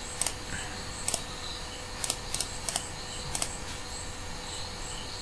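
Computer mouse clicking: about six sharp clicks over three and a half seconds, several of them quick press-and-release pairs.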